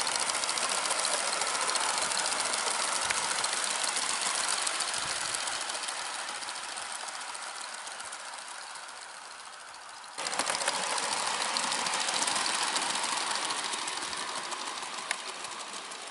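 Gauge 1 model J72 locomotive and coaches running on the track: a fast, steady mechanical clatter of wheels and drive. It grows fainter, comes back loud suddenly about ten seconds in, then fades again.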